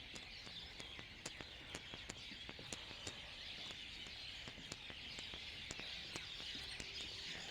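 Faint chorus of small birds chirping, short calls scattered irregularly over a steady background hiss.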